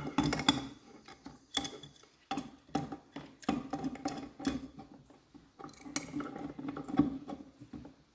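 Adjustable wrenches clinking and knocking on metal fittings as they are handled and set to work: a series of irregular sharp clicks and taps, some with a short metallic ring.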